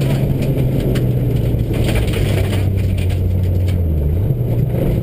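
Subaru rally car's flat-four engine heard from inside the cabin, its note sinking gradually as the car slows, then climbing sharply about four seconds in as it accelerates again, over a steady rumble of tyres on gravel.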